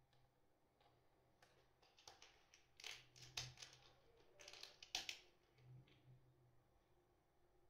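Faint clicks and rattles of small screws and parts being handled on a metal-and-plastic battery case panel, with a few sharper clicks about three and five seconds in.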